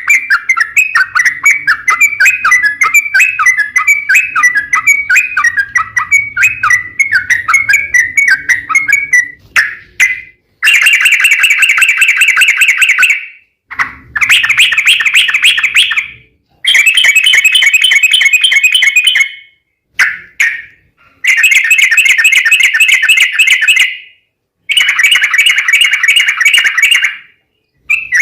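Yellow-vented bulbul (trucukan) singing: a run of quick chirping notes, then from about ten seconds in, a series of long rapid rolling trills, each two to three seconds, with short gaps between them.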